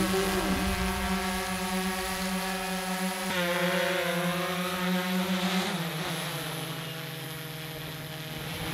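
Tenku multirotor delivery drone's propellers humming in a steady, even pitch. The pitch shifts about a third of the way in and drops lower about two-thirds in as the drone comes down to its landing pad.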